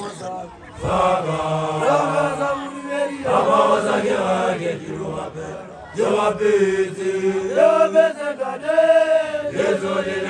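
Young Basotho initiation graduates (makoloane) chanting together, voices rising and falling with several long held notes.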